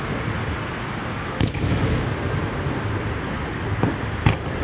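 Aerial fireworks going off: a sharp bang about a second and a half in, then a fainter bang and a louder one close together near the end, over a steady outdoor rumble and hiss.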